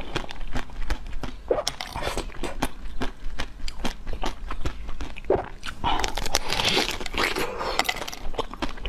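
Close-miked eating: a dense run of sharp crunching clicks from biting and chewing, with a softer, hissing stretch about six to seven seconds in.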